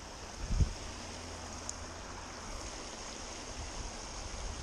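Steady rush of water spilling over a small pond spillway, with a brief low thump about half a second in.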